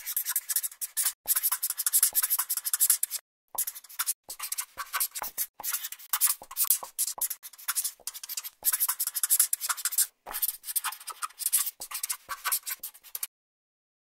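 Writing sound effect, a pen scratching quickly on paper in short bursts with brief pauses between them, stopping shortly before the end.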